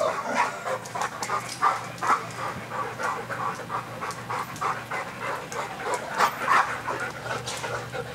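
Dogs panting as they move about, with many short, irregular clicks and scuffles.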